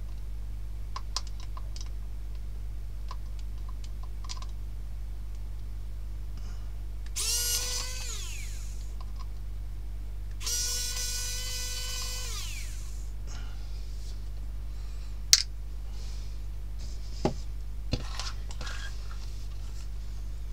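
Small cordless electric screwdriver whirring twice, each run lasting about one and a half to two seconds with a steady pitch that winds up and down at the ends, backing out the drone's body screws. Later come a few sharp clicks and knocks of the small plastic drone being handled on a stone slab, the first being the loudest.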